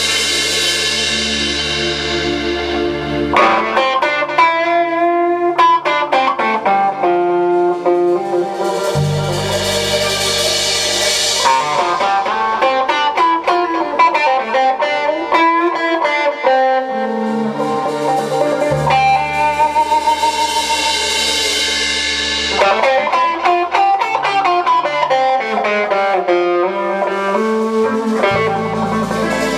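Live band playing an instrumental passage, with a guitar lead melody over bass and drums.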